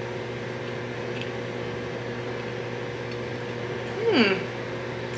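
A person eating and tasting food lets out one short closed-mouth "mm" about four seconds in, its pitch rising then falling, over a steady low room hum.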